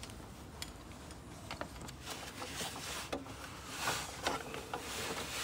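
Faint scattered clicks and light taps of hands and a wrench working the ancillary belt off the pulleys of the engine's belt drive, a little louder about four seconds in.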